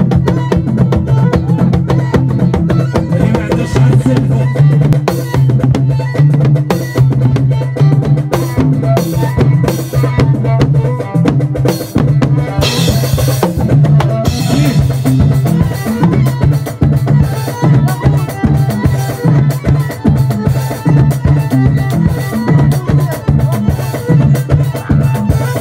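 Live drum kit played in a fast Moroccan chaabi groove: dense snare and tom strikes with bass drum, over the band's steady bass line. A cymbal crash rings out about halfway through.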